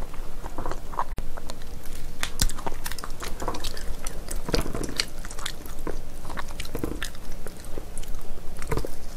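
Close-miked eating sounds of chewy spicy braised ox foot (beef trotter): irregular clicks and smacks of biting and chewing, with the meat being pulled apart by gloved hands.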